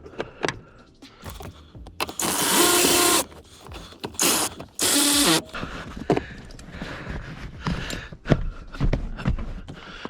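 Rear-seat and interior trim pieces being handled and pushed back into place: scattered clicks and knocks, with three loud rasping, scraping bursts about two, four and five seconds in.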